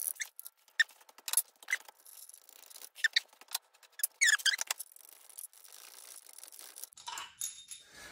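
Short metal squeaks and scrapes from an Audi 2.0 FSI engine's main bearing cap being wiggled loose from its tight seat in the block, a string of brief squeaks with a cluster of chirpy, wavering squeals about four seconds in.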